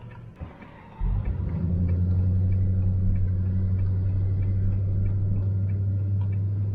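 Van running, heard from inside the cab: a loud, steady low rumble that comes in suddenly about a second in and holds, with faint light ticking throughout.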